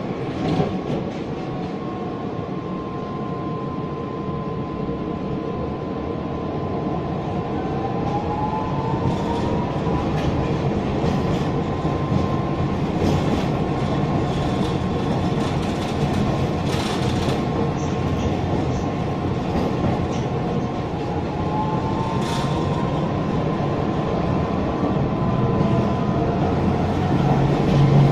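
Electric tram running along its rails, heard from on board: a steady rolling noise with an electric whine that rises in pitch twice as the tram picks up speed, and occasional clicks from the track.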